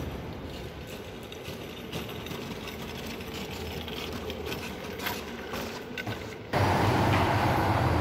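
Quiet church-interior room tone with a faint steady hum and a few light handling clicks. About six and a half seconds in it switches suddenly to much louder city street noise, a low traffic rumble with general bustle.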